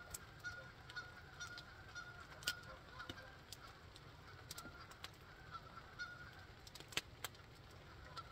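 A flock of geese honking faintly and repeatedly, with scattered sharp clicks.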